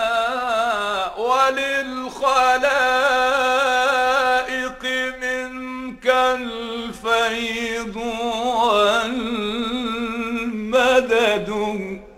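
Arabic devotional song (nasheed): a male voice singing long, ornamented held notes with a wavering pitch over a steady low drone, with no percussion.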